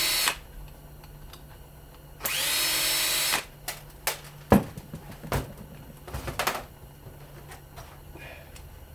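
Power drill driving fasteners out of a small electric motor in two short runs of about a second each, its whine rising as it spins up, followed by several sharp metal clanks as the motor parts are handled, the loudest about four and a half seconds in.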